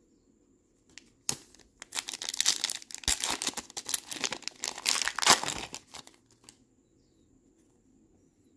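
Trading card pack wrapper crinkling and crumpling in the hands as the pack is opened. There is a sharp crackle about a second in, then dense crinkling for about four seconds that stops about six seconds in.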